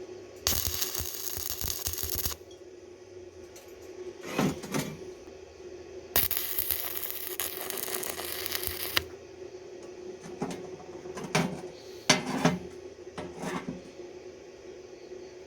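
Metalworking on rebar: two bursts of harsh hissing noise, one of about two seconds and one of about three, then a run of short metal clinks and knocks.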